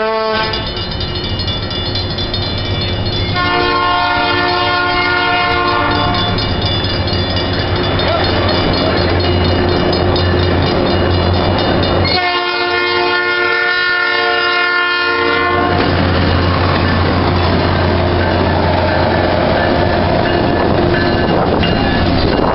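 Northwestern Pacific diesel locomotive 2009 sounding its air horn for a road crossing: the end of a short blast, then two long blasts about a second after the start and about halfway through. Under the horn its diesel engine rumbles steadily, louder near the end as the locomotive reaches the crossing.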